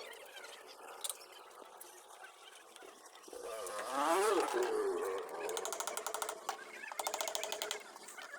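A hen clucking: a rising-and-falling call about four seconds in, then two runs of rapid clucks.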